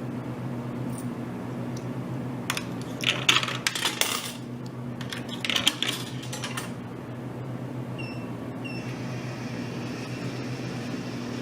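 Coins clattering down into a vending machine's coin return as it pays out change, in two rattling rushes about three and five and a half seconds in, over the machine's steady hum. Two short electronic beeps follow near the end.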